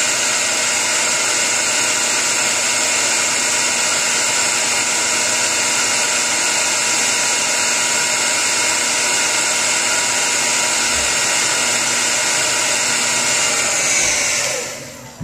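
Hair dryer blowing hard, a steady rushing noise with a faint motor hum. About a second before the end it is switched off and the sound falls away as the motor winds down.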